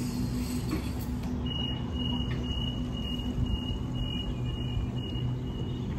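Door-closing warning on a Sydney Trains Waratah double-deck train: a high beeping tone, pulsing about twice a second, starts about a second and a half in and lasts about four seconds, over the low hum of the train standing at the platform.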